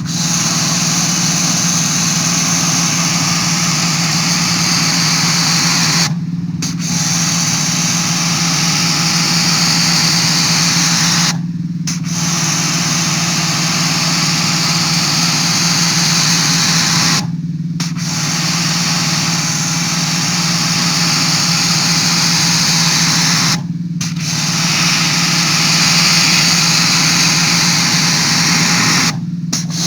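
Sun Joe SPX3500 electric pressure washer running: a steady motor-and-pump hum under the loud hiss of the water jet from the 15-degree nozzle. The hiss breaks off for about half a second roughly every six seconds while the hum carries on.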